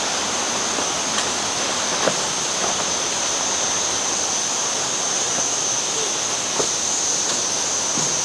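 Elephant Falls waterfall: a steady, even rush of falling water. A thin high whine holds steady above it, and a few faint knocks come through now and then.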